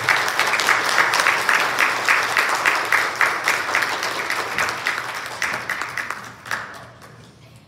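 Church congregation applauding a just-finished song, full at first, then thinning out and dying away about seven seconds in.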